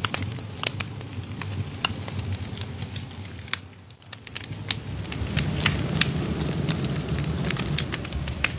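Campfire burning: wood crackling and popping in quick irregular snaps over a low rush of flame. The rush dips briefly about four seconds in, then comes back louder.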